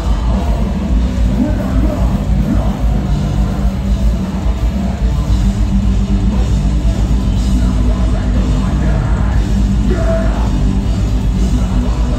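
Metalcore band playing live at full volume: distorted electric guitars, pounding drums and keyboard, with screamed vocals, as heard from within the crowd.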